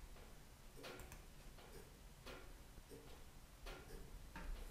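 Near silence with a faint, regular ticking, about one tick every three-quarters of a second.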